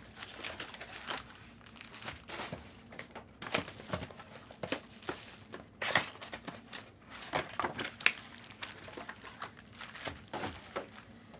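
Plastic and foil wrapping of trading card packs crinkling and tearing as they are opened by hand, with irregular sharp crackles throughout.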